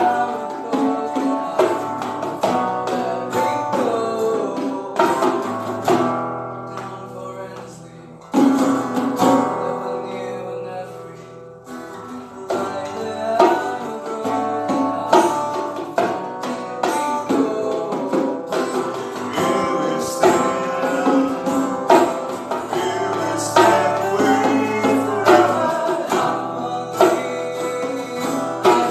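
A band playing a guitar-led song with plucked strings. The music thins out for a couple of seconds about six seconds in, then the full band comes back in sharply.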